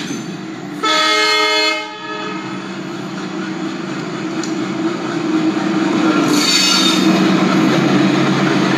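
Recorded train sound: a horn sounds once for about a second, about a second in, then the steady running rumble and clatter of a train grows louder, with a brief hiss around six seconds in.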